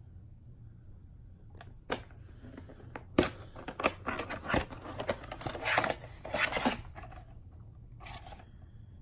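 White plastic VHS clamshell case being handled and snapped open, with sharp plastic clicks and rustling as the cassette is taken out. The sounds start about two seconds in, and the sharpest click comes about three seconds in.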